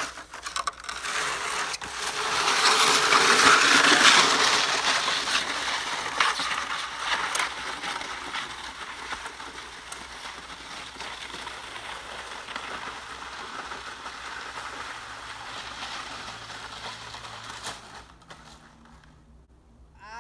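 Snow racer (GT) sled's skis scraping and rattling over icy packed snow on its run downhill, loudest a few seconds in and then slowly fading as it goes.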